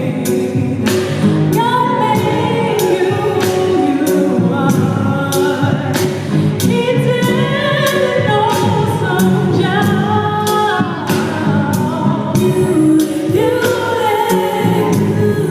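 Live gospel music: singing over a band, with steady drum and cymbal hits.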